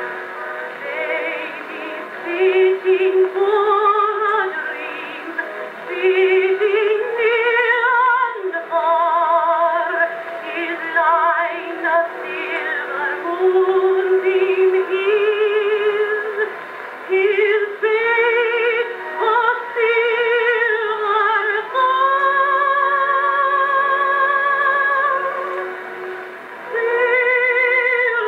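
Edison Jacobean phonograph playing an Edison record of a contralto singing a lullaby with wide vibrato over accompaniment, with a long held note about three quarters of the way through. The early recording sounds thin and narrow, with nothing above about 4 kHz.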